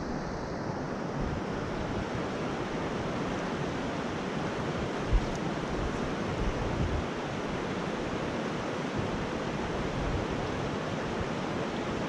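Steady rush of a shallow, rocky mountain trout stream flowing over riffles. A single short thump comes about five seconds in.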